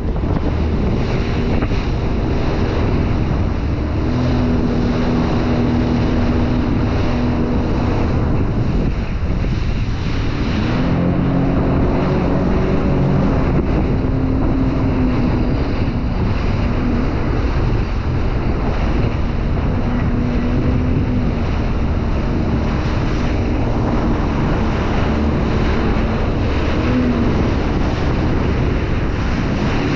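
Wind buffeting the microphone and water splashing around a Sea-Doo Spark Trixx jet ski. Under them is a steady engine hum that breaks off and comes back several times at slightly different pitches.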